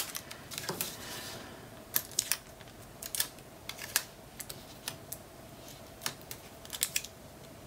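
Hands handling paper, tape and a small magnet on a cutting mat: scattered light clicks and taps, about one or two a second, over a faint steady hum.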